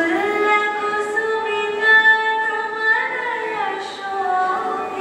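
Song with a woman singing long, drawn-out notes that slide between pitches, over instrumental backing, playing for a dance.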